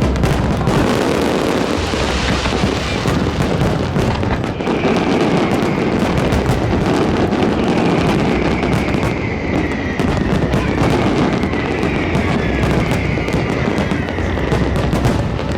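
Fireworks display: a loud, continuous barrage of overlapping bursts and crackling reports.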